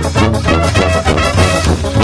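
Lively music with brass instruments over a fast, steady beat.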